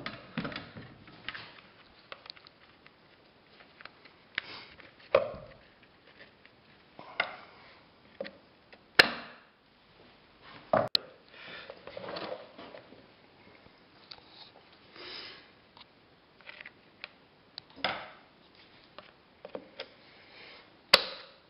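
Scattered knocks and clicks of a push reel mower's wheel being refitted onto its axle and a thin metal tool worked in its hub, with three sharp clicks spread through.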